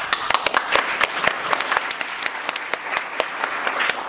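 Audience applauding: many hands clapping steadily for about four seconds, tailing off at the very end.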